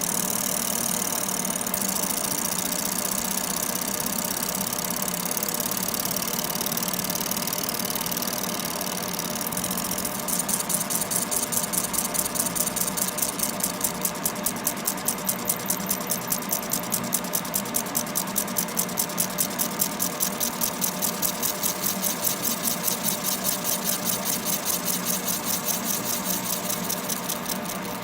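Laser separating machine working on an iPhone's back glass, with its smoke-purifier fan running steadily. About ten seconds in, a fast, even pulsing starts up and carries on over the fan noise.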